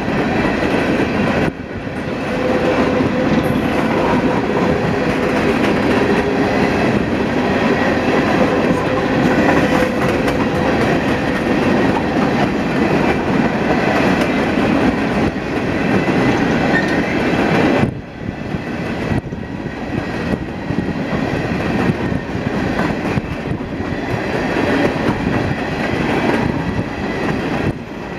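Union Pacific coal train's cars rolling steadily past, steel wheels running on the rails.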